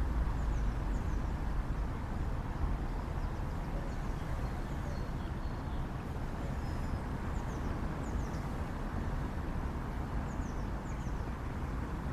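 Steady low outdoor rumble, with faint high bird chirps, short falling notes, scattered through it.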